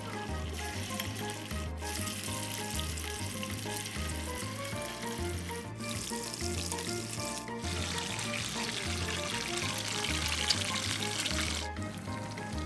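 Flour-coated chicken drumsticks and wings deep-frying in hot oil in a small pan, sizzling steadily. The hiss breaks off briefly a few times and is loudest about three-quarters of the way through. Background music with a repeating bass line plays throughout.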